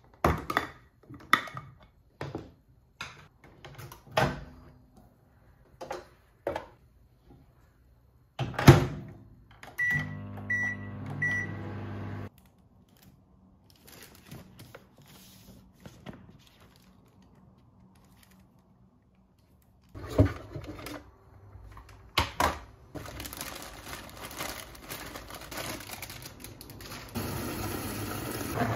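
Clicks of a glass food container and its clip lid being handled, then a knock like a microwave door shutting, followed by three short beeps and the microwave oven's steady hum for about two seconds. Near the end, a kitchen tap runs water into a plastic salad spinner basket.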